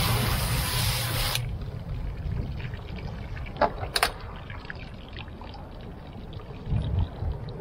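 Water hissing, as from a hose or tap, for about a second and a half before it cuts off, then two sharp knocks a few seconds in, over a steady low rumble.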